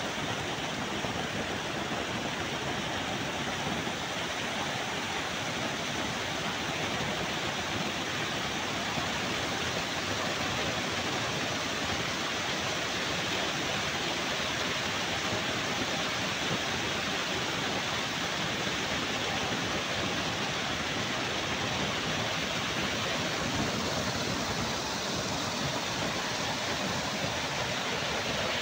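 Waterfall: a curtain of water pouring into a pool and churning it to foam, heard close up as a steady, unbroken rush and splash.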